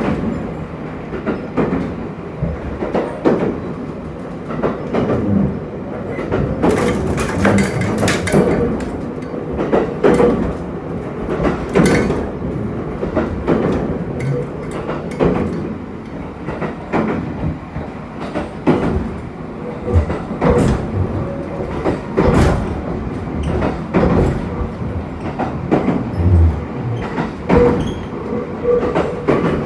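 Inside the cabin of a JR East HB-E300 series hybrid railcar running at speed: a steady rumble from the train, with frequent irregular clacks from the wheels on the track. There is a brighter stretch of hiss about seven seconds in.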